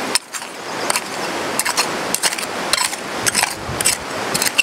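Short-handled steel pick digging into gravel and stones under a boulder: repeated sharp clinks and scrapes of steel on rock, irregular, roughly two a second.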